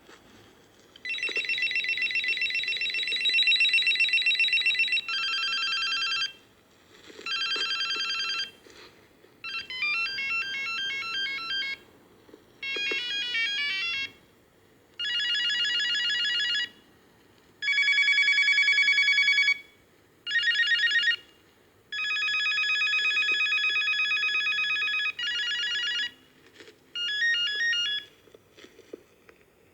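Philips CD155 cordless phone playing through its ringtones, about a dozen short electronic melodies one after another. Each plays for one to four seconds, then a brief pause, and the next tune begins.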